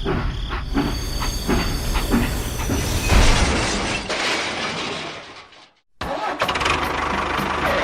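Small engine running with a rapid knocking rhythm, then fading and cutting out abruptly; it comes straight back with the same fast knocking.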